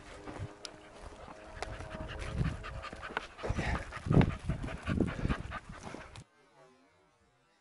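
A hunting dog panting after a retrieve. The sound cuts off suddenly about six seconds in.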